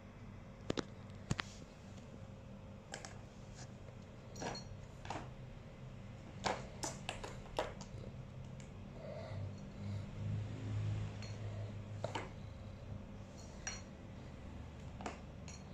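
Irregular light plastic clicks and taps from a three-tier plastic ball-track cat toy as a cat paws at it and the balls knock in the tracks, with a low rumble a little past the middle.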